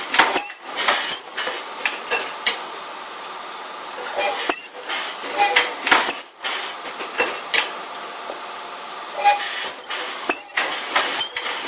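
PP ultrasonic welding machine at work: a steady mechanical hum broken by irregular clanks and clinks, with a few brief tones.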